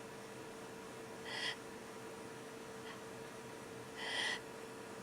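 Two short, sharp breathy in-breaths, about a second in and again near four seconds, from a person holding back a building sneeze.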